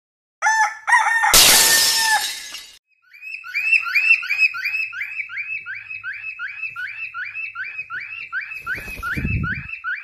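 A lutino Indian ringneck parakeet gives a few short squawks and then a loud, harsh screech. After a break, a cockatiel chirps rapidly and evenly, about three chirps a second, with a low handling thump about nine seconds in.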